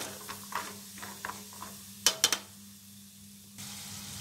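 Peanuts frying in hot oil in a wire-mesh strainer, stirred with a steel spoon that clinks against the mesh and pot: several light clicks, then two sharp clinks about two seconds in. The oil's sizzle grows louder near the end.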